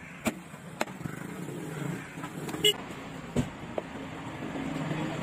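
Heavy fish-cutting knife chopping through a cobia onto a wooden block: about five sharp knocks, the loudest near the middle with a brief metallic ring. A steady low background hum runs underneath.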